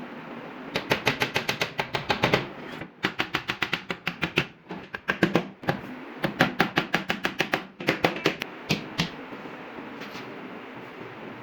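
Quick runs of sharp taps or knocks, about seven a second, in several bursts separated by short pauses.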